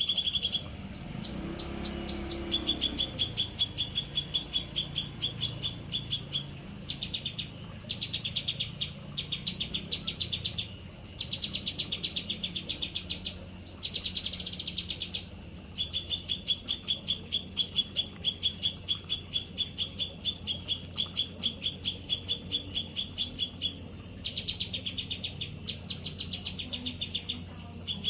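Songbird giving long runs of rapid, evenly repeated high chirps, broken by short pauses, with a brief harsher, hissier call about halfway through.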